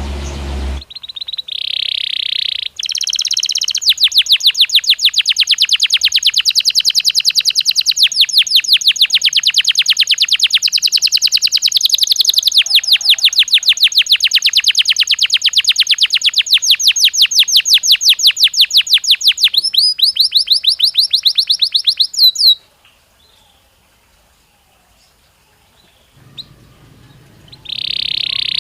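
Belgian canary singing: a short held whistled note, then a long, very fast trill of repeated notes that stops abruptly about twenty-two seconds in. After a few quiet seconds a whistled note starts again near the end.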